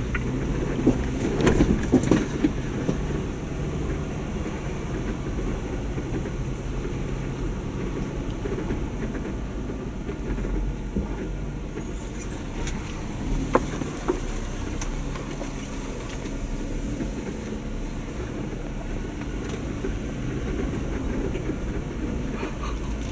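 2019 Jeep Wrangler Unlimited driving a rough dirt trail: a steady low engine drone with the body rattling and knocking over bumps, a cluster of louder knocks about two seconds in and a sharp single knock partway through.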